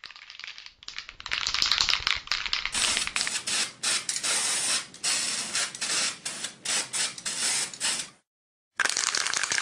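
Aerosol spray-paint can hissing in many short, uneven bursts, as for graffiti being sprayed onto a wall, with a brief pause near the end.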